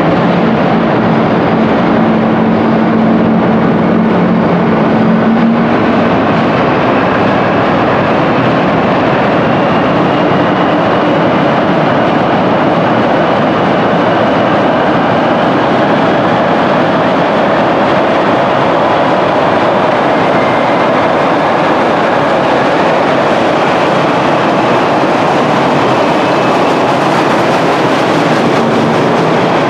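Montreal Metro work train, a work tractor with unpowered wagons, running through an underground station with a loud, steady noise. Two low steady tones sound at the start and stop about six seconds in.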